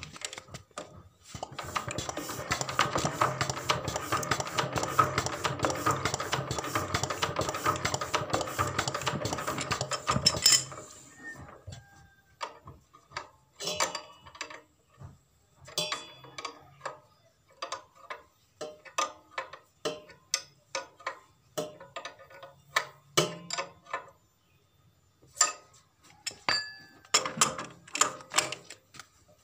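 Fast metallic clatter from a diesel engine as it is turned over to test the injection pump after its delivery valve was cleaned. The clatter lasts about nine seconds and stops suddenly, followed by scattered single metallic clicks and knocks.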